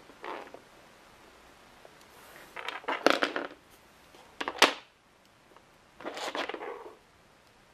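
Plastic toy figures and a toy fence section being handled and knocked over, knocking and clattering on the floor in a few short bursts, with one sharp knock about halfway through.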